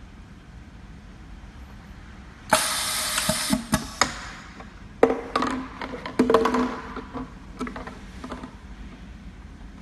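Pneumatic semi-automatic bottle labelling machine working through a cycle on a plastic bottle. A sudden burst of hissing and clattering starts about two and a half seconds in. A second burst with clicks and a low hum follows about a second later, then scattered clicks fade out.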